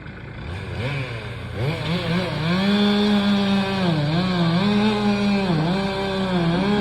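Stihl chainsaw revving up from a low idle to full throttle over about two seconds, then running at high speed while its pitch sags briefly three times, as under load cutting wood.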